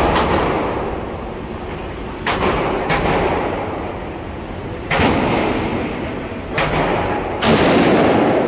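Large-calibre .454 Casull revolver fired about six times at uneven intervals, each shot a sharp report followed by a long echoing decay off the walls of an indoor range. The loudest burst comes near the end.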